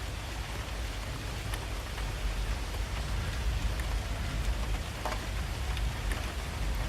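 Steady rain falling: an even hiss of rain with a low rumble underneath and a few scattered drip ticks.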